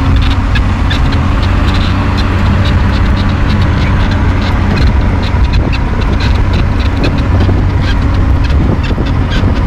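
A motor engine running steadily and close, with a dense, irregular clatter of short ticks over its low hum.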